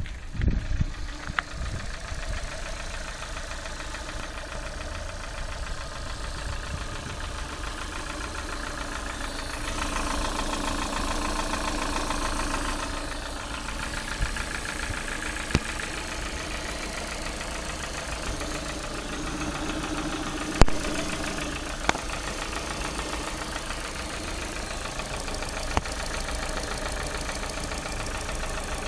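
Lada Priora's 1.6-litre four-cylinder petrol engine idling with a knock, which the owner cannot place between piston knock and tapping hydraulic lifters. The engine runs a little louder for a few seconds about ten seconds in, and a few short sharp clicks come later.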